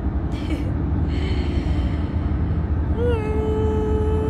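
Steady low rumble of a moving car, heard from inside the cabin. About three seconds in, a voice holds a single note for about a second and a half.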